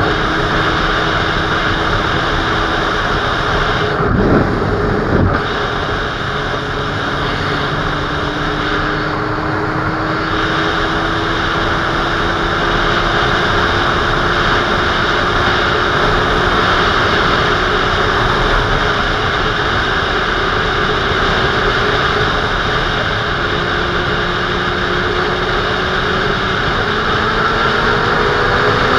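Sport motorcycle riding at road speed: a strong rush of wind over the camera with the engine note underneath, slowly rising in pitch as the bike speeds up, and a couple of brief knocks about four to five seconds in.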